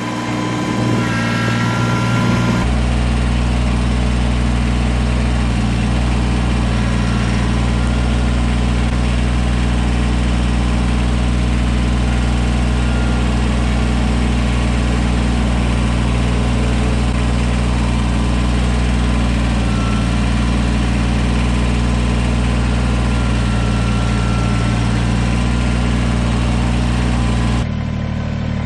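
Kubota BX2380 compact tractor's three-cylinder diesel engine running steadily, louder and deeper from a couple of seconds in until shortly before the end.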